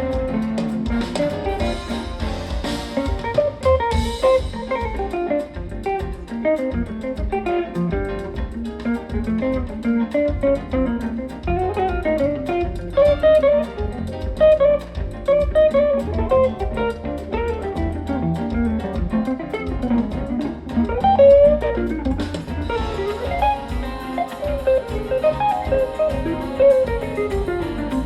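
Live jazz band music: a guitar plays quick melodic runs over bass and drum kit, with the cymbals getting brighter about two-thirds of the way through.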